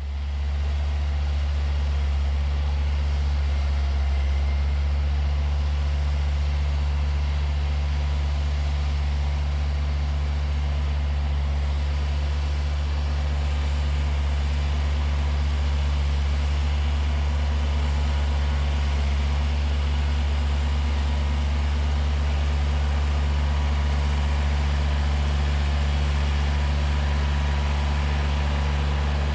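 Kubota DC-105X combine harvester's diesel engine running steadily at a constant speed, a deep even drone, with the hum of the working machinery over it.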